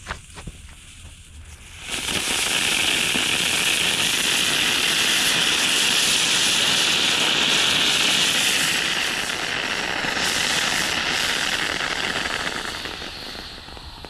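3D-printed sugar rocket motor igniting about two seconds in and burning with a loud, steady hiss for about ten seconds, fading near the end. It burns on the launch pad without lifting the rocket, setting the rocket and pad on fire: a failed launch.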